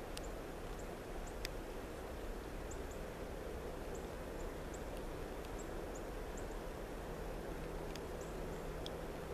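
Steady low rumble of distant engines, with a faint steady hum joining about three seconds in. Thin, high chirps of small birds are scattered through it.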